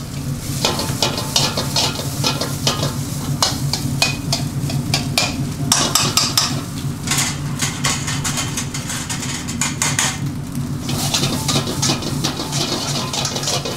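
Metal spatula stirring and scraping rice in a black steel pan over a high gas flame, with many quick scrapes and clinks over the sizzle of the frying food. A steady low hum runs underneath.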